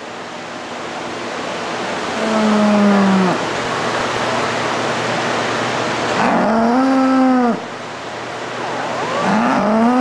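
Holstein dairy cows mooing: three long moos, about two, six and nine seconds in, the first falling in pitch, over a steady background hiss.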